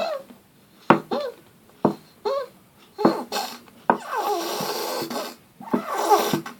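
Squeeze container of body lotion being squeezed, squeaking and squelching as air and lotion are forced out in a series of short squeaks, with a longer hissing squirt about four seconds in.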